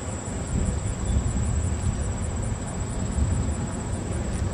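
Outdoor background noise: a low, uneven rumble that swells and fades, with a faint, steady, high-pitched pulsing tone above it.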